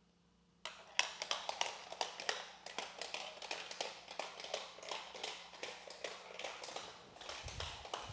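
A marble rolling and dropping down a marble run built from plastic magnetic tiles: a rapid string of clicks and taps that starts about half a second in.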